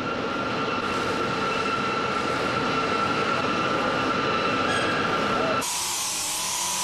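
Steady workshop machinery noise with a few constant tones running through it. About five and a half seconds in it switches abruptly to a thinner, hissier noise.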